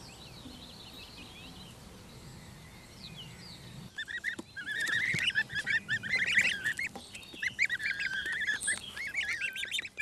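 A crowd of domestic goslings peeping. The many high, rapid, overlapping peeps begin about four seconds in and go on busily, after a quieter start.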